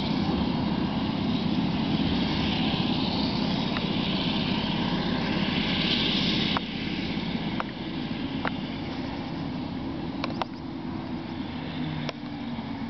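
Claas Jaguar 970 forage harvester chopping maize and blowing it into a trailer alongside, a steady heavy engine-and-chopper drone heard across the field. The drone drops in level about six and a half seconds in, and a few faint clicks follow.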